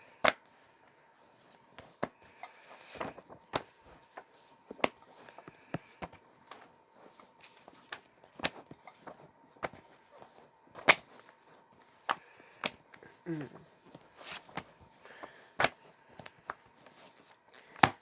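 Comic books being handled and set down one by one: scattered sharp taps and clicks with short paper and plastic rustles, a few seconds apart.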